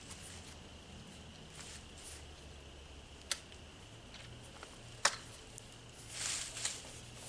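Adjustable clamps on a chainsaw extension pole being worked by hand: two sharp clicks about two seconds apart, then a short stretch of rustling handling noise near the end.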